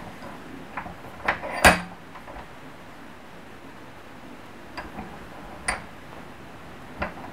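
A few separate light knocks and clicks as a workpiece is handled and set down on a steel bench vise, the loudest about a second and a half in.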